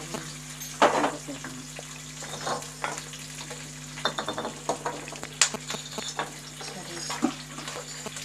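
Oil sizzling in a steel kadai as a South Indian tempering fries: dals, peanuts, cashews and green chillies, with dried red chillies being broken by hand and dropped in. Scattered light clicks and scrapes in the pan.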